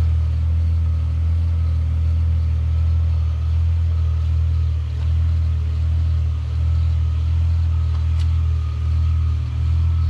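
A car engine running steadily with a low, even hum.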